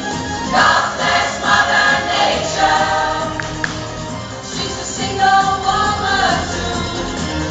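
Pop choir singing in short phrases over steady low backing music.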